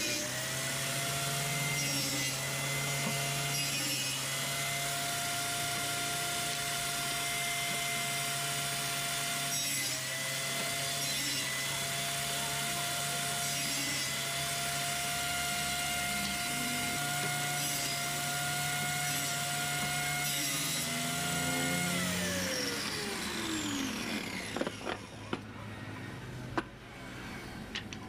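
Table saw running with a steady whine that dips a little in pitch now and then as thin wooden strips are fed through the blade. About three quarters of the way through it is switched off and the whine falls away as the blade winds down, followed by a few sharp knocks of loose wooden strips.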